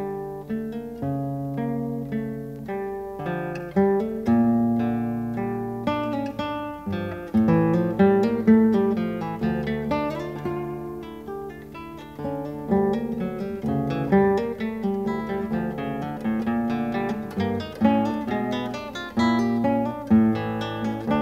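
Solo acoustic guitar music: a steady flow of plucked notes that ring and die away.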